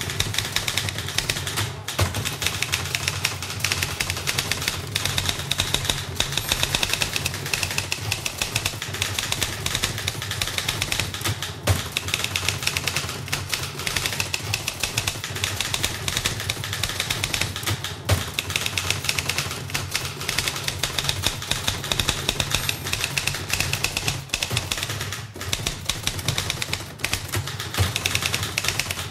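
Two manual typewriters being typed on fast, a dense, continuous clatter of key strikes with occasional louder clacks, heard close in a small office.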